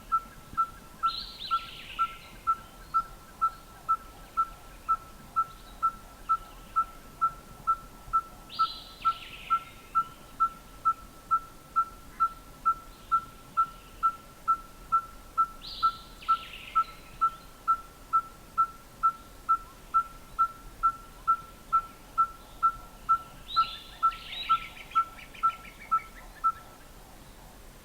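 Red-fronted tinkerbird singing its closed-beak song: a single pure 'tink' note repeated monotonously at an even pace, a little under two a second, like a hammer striking an anvil. It stops near the end. Another bird's short, falling, higher call breaks in four times.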